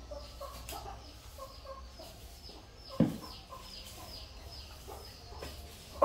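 Chickens clucking, a run of short repeated calls. One louder thump about three seconds in.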